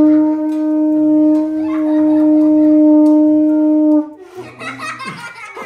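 Conch shell blown as a horn: one long, steady, loud note that cuts off about four seconds in.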